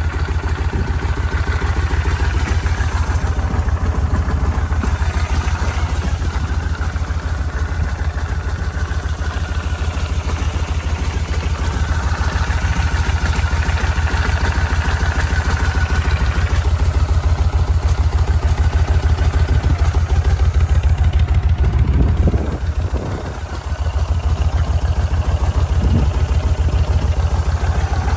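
1996 Kawasaki Vulcan 1500 Classic's water-cooled four-stroke V-twin idling steadily with an even low beat, an engine in good running order.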